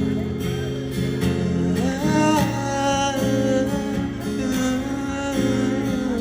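Music: a pop ballad with acoustic guitar accompaniment, a long held melody note entering about two seconds in and sliding down slightly near the end.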